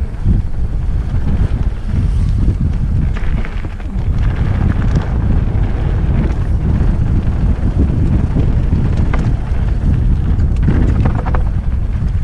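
Wind buffeting a helmet-mounted camera's microphone as a downhill mountain bike descends a dirt singletrack, with tyre noise and scattered rattles and clatters from the bike over bumps.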